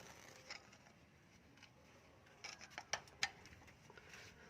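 A pry bar levering on a Ford Ranger's lower suspension arm, giving a few faint metallic clicks and clunks, with a cluster of them about two and a half to three seconds in. This is the free play the mechanic takes for a damaged lower suspension bushing.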